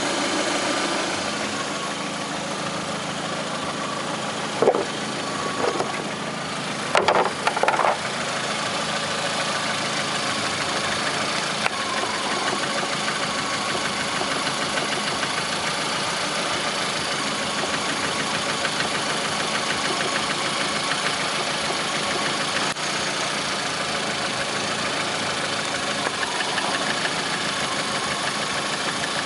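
Lada Priora's 1.6-litre 16-valve VAZ-21126 engine idling with a knock, which the owner links to Suprotec additive and tags as hydraulic lifters or the piston group. A few brief louder clatters come about five and seven seconds in.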